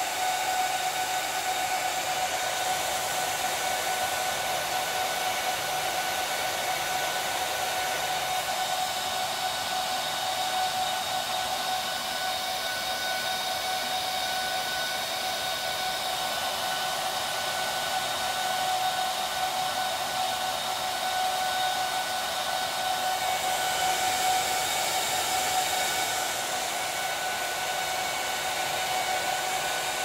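HPE ProLiant DL380p Gen8 server's cooling fans running during the power-on self-test at boot: a steady whirring rush of air with a steady high whine over it, swelling slightly in the hiss near the end.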